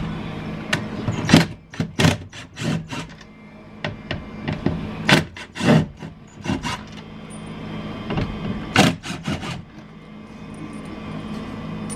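Short knocks and rattles of a tool and small metal parts against a car door, in three clusters, as the 7 mm screws holding the power-window motor are taken out. A steady low hum runs underneath.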